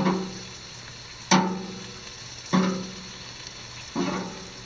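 Metal tongs clank four times against the grill's upper rack while squash is lifted off. Each clank rings briefly and fades, over the steady sizzle of chicken cooking on the grill.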